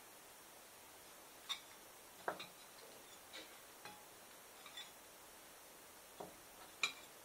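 Light clicks and taps of onion rings and fingers against small ceramic bowls as the rings are dipped in egg and flour, about seven at irregular intervals, the sharpest near the end.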